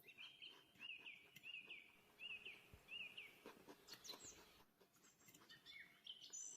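A small bird chirping: a quick run of short, repeated chirps, about two a second, then a few scattered higher chirps, with faint clicks and knocks underneath.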